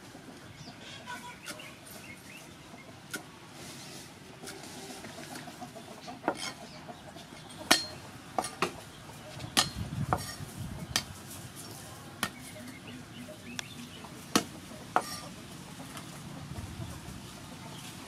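A cleaver chopping on a thick wooden chopping board, cutting herbs and star gooseberries: irregular sharp knocks, sparse at first and coming thicker and louder from about eight seconds in.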